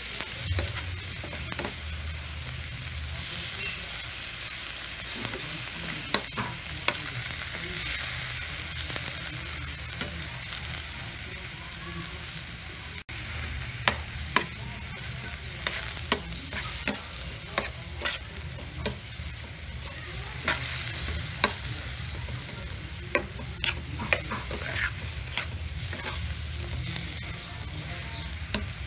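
Ground beef sizzling as it browns in a wok, stirred and scraped with a spatula, with frequent sharp clicks and taps of the spatula against the pan over a steady hiss.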